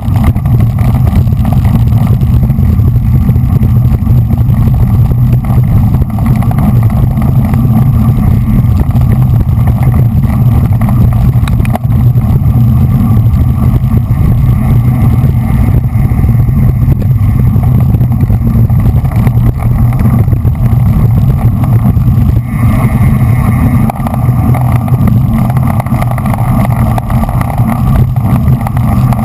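Steady, loud wind rumble on the microphone of a GoPro riding on a racing bicycle at speed in a road-race bunch.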